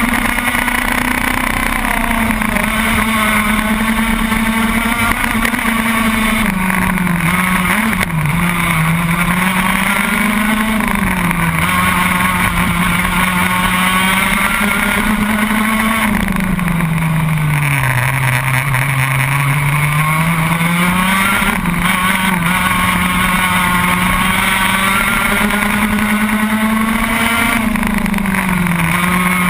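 Racing kart engine at full race pace, heard from onboard: its revs climb and drop again and again as the kart accelerates and slows through the lap, falling to their lowest about halfway through before climbing again.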